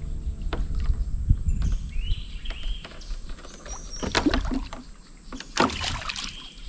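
Hooked fish thrashing at the surface beside a kayak as it is reeled in. There are a few sharp splashes, one about four seconds in and a cluster a little later, over a low steady rumble.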